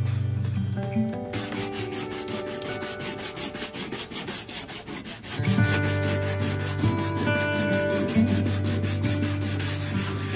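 Sandpaper rubbed back and forth by hand over a hardened patch of sand and super glue on a plastic bin, smoothing it down in quick repeated strokes that start about a second in.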